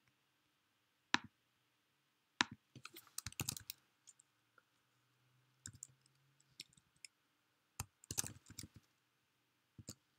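Typing on a computer keyboard, in short bursts of quick key clicks, after a couple of single clicks about one and two and a half seconds in.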